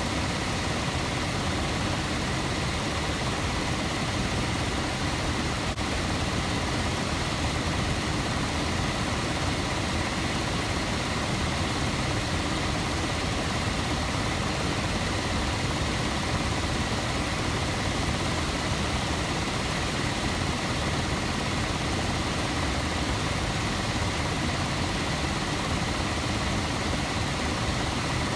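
Trane heat pump air handler's blower running, a steady rush of air with a faint steady whine. Its blower wheel is wobbling badly.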